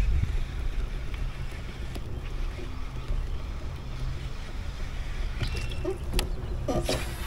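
Steady low wind rumble on the microphone, with water noise around a kayak and a few sharp clicks in the last couple of seconds.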